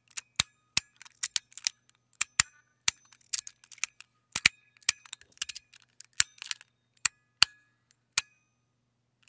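Sound Emperor tuning fork fidget slider being flicked back and forth: its stainless steel plates snap from end to end in sharp, uneven clicks, several a second. Most clicks are followed by a brief bell-like ringing from the tuning fork mechanism.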